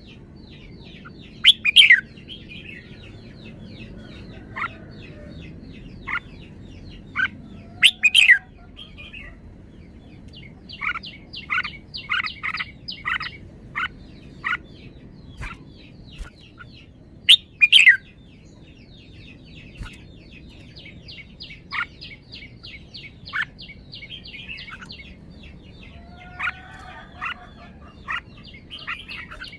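Red-whiskered bulbul singing: loud short phrases of a few notes about every six to ten seconds, with quick runs of short high chirps between them.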